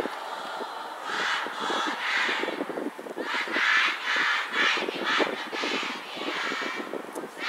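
A large group of students in a cheer stand shouting and chanting together, in a string of short shouts.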